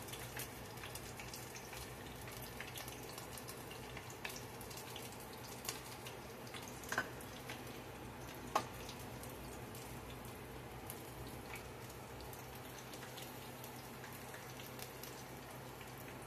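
Battered onion rings deep-frying in a pot of oil: a faint, steady sizzle with small crackles over a low hum, and a couple of light clicks around the middle.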